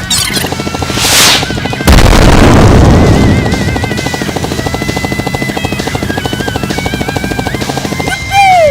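Background music with a fast pulsing beat. About a second in, a whoosh leads into a sudden loud boom, a dramatic sound effect that fades out over a couple of seconds while the music carries on.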